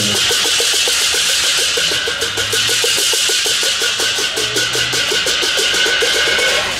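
Festival percussion: a wash of clashing cymbals over a drum beaten in a fast, even roll.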